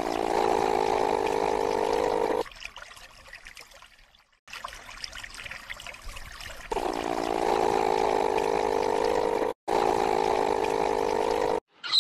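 Running water, a steady rushing trickle. It fades to a softer wash about two and a half seconds in, comes back at full strength about seven seconds in, and breaks off for an instant near ten seconds before running on.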